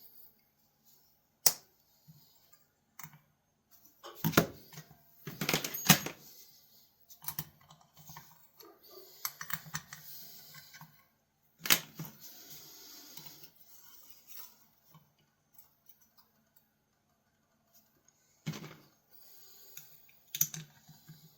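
Scattered sharp clicks and taps with a few short scraping or rubbing strokes: small metal pocket knives and tools being handled and worked on a bench. The loudest clatter comes about four to six seconds in.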